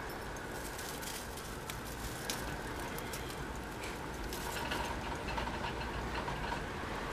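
Steady hiss with faint scattered clicks and scratches, a pet chinchilla moving about in its cage of wooden logs and hay, busiest from about four and a half seconds in.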